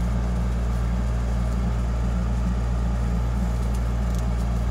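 Steady low hum, unchanging throughout, with a few faint light ticks.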